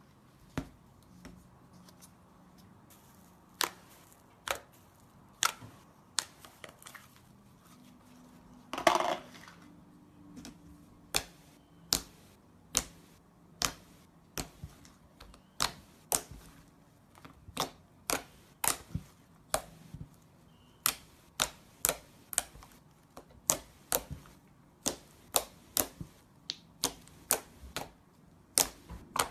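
Slime being squeezed and worked by hand, its trapped air pockets popping in sharp, irregular clicks about one or two a second. There is a longer, louder crackling pop about nine seconds in.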